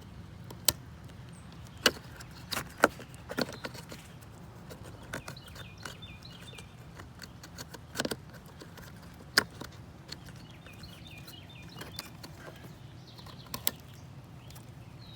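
Plastic wiring-harness connectors being pushed onto a Jeep's engine computer (PCM) and their red locking tabs slid home, giving a scattering of sharp clicks and handling rattles, each click the sign of a connector seating. Birds chirp faintly in the background.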